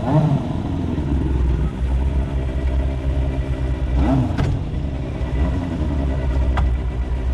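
Motorcycle engine running steadily, with one quick rev about four seconds in.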